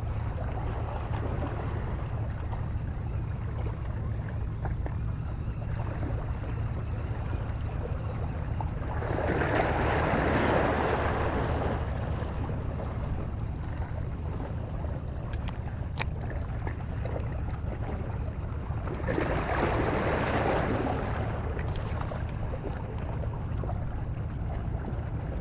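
A steady low hum under the wash of water around a small boat on the sea. Two louder swells of splashing, wind-blown noise come about ten and twenty seconds in.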